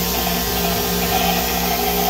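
Steady machinery hum with a hiss over it, like fans, motors or pumps running in a machine shop, with a low electrical hum tone throughout.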